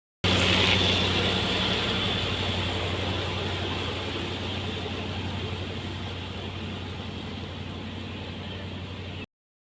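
Engine of road-construction machinery running steadily at idle with a low, even hum, slowly growing quieter; the sound cuts in just after the start and cuts off abruptly near the end.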